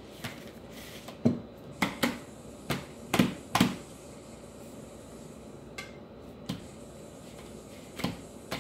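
A string of short clinks and knocks of a plate and a drinking glass being handled on a dining table: about six sharp ones close together in the first few seconds, then a few fainter ones later.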